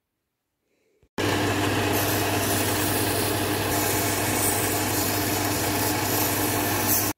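Electric belt sander running steadily with a low hum, a thin wooden stick held against the moving abrasive belt to sand its end. It starts suddenly about a second in and cuts off near the end.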